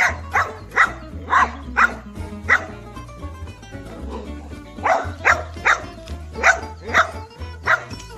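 A dog barking repeatedly, about two barks a second, with a pause of about two seconds in the middle. Background music with a steady low bass runs underneath.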